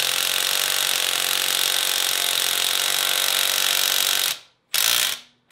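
Small cordless electric impact wrench, rated at 116 foot-pounds, hammering on a wheel lug nut for about four seconds. It stops, then gives a short second burst near the end. It is barely strong enough to break the lug nut loose.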